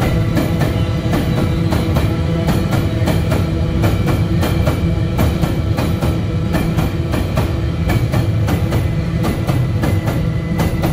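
Empty GDE iron-ore wagons rolling past, their wheels clicking over rail joints several times a second, over steady high-pitched metallic tones that hold the same pitch throughout.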